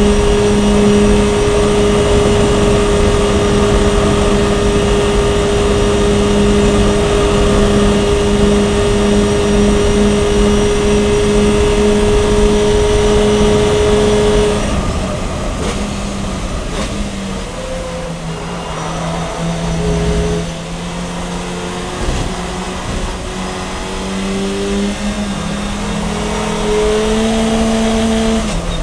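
Kronos Fun Cup race car's engine heard from inside the cockpit, held at a steady high pitch at full throttle in fifth gear for about the first half. About halfway it drops off as the car slows and shifts down to third, and the note goes lower and uneven. It climbs again under acceleration near the end, and a gearchange steps it down right at the close.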